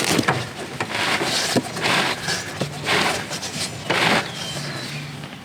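Riding mower wheel scraping and knocking against its axle as it is worked on by hand: a run of short rasps about a second apart, with a few sharp clicks.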